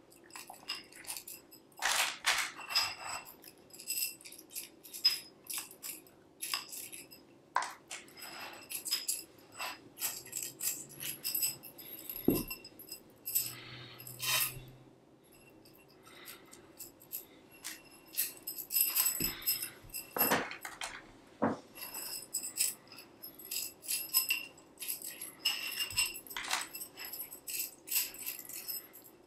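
Irregular clinks, clicks and rattles as a tensegrity structure's strut tubes and tendon joints are handled and unhooked during disassembly, some clinks ringing briefly at a high pitch.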